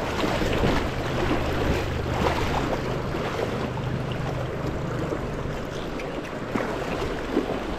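Fast, shallow river water rushing and splashing around a wader's legs and over rocks, a steady rush with brief splashes. A low steady rumble underlies it through the first half.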